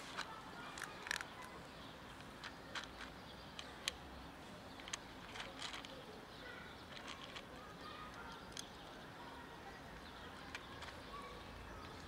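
Cat eating dry kibble at close range: irregular crisp crunches and clicks as it chews and picks pellets from a plastic container, over faint outdoor background noise.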